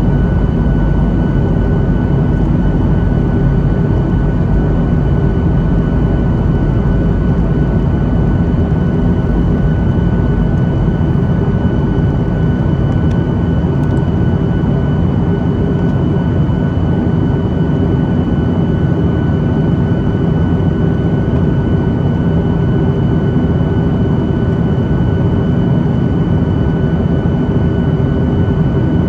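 Jet airliner cabin noise: a steady drone of engines and rushing air, with a thin steady whine above it.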